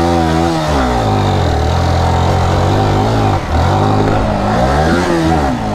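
Yamaha R15 V3's 155 cc single-cylinder engine revving hard as the sportbike is ridden at a dirt jump. Its pitch falls and rises several times, with a brief drop about three and a half seconds in.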